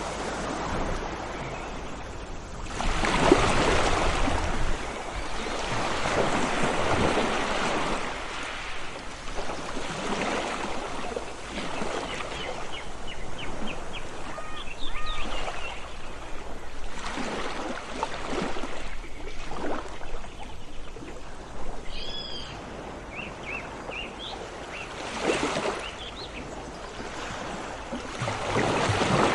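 Sea waves washing in and pulling back, swelling every few seconds, with small birds chirping in short bursts midway through and a few clear calls later.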